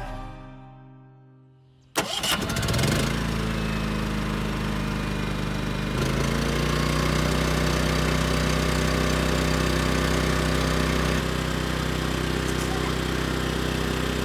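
Background music fading out, then a Champion 3400 W dual-fuel inverter generator's single-cylinder engine, fuelled by propane, starts abruptly about two seconds in on its first start and settles into a steady run. Its pitch steps up about six seconds in.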